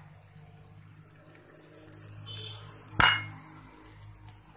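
Julienned carrots, almonds and raisins frying quietly in oil in a nonstick pan over a low steady hum; about three seconds in, a wooden spatula knocks once against the pan with a short ring.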